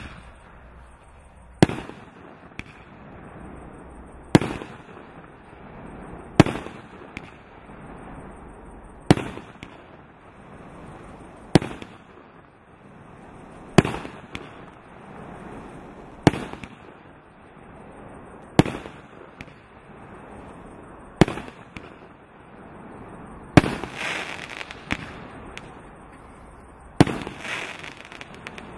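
Klasek C165D "Ďáblův Šleh" consumer firework firing single shots one after another, a sharp bang about every two and a half seconds, each fading into a short hissing tail. The last two shots are followed by crackling.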